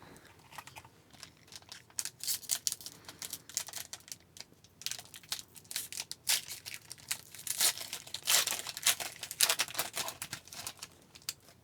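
Plastic-foil wrapper of a hockey card pack crinkling and tearing as it is opened, an irregular run of crackles that grows denser in the second half.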